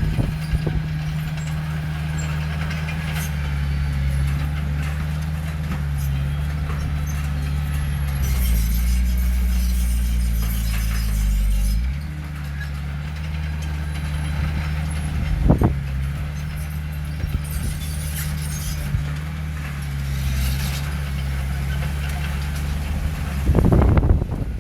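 Heavy diesel engine of earthmoving machinery running steadily, getting louder from about eight seconds in and dropping back in pitch and level near twelve seconds, with a brief sharp sound about fifteen seconds in and another near the end.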